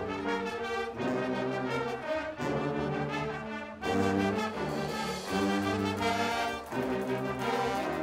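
A Guggenmusik brass band playing loud, full brass chords on trumpets, trombones and sousaphones, with drums, in held phrases broken by short gaps.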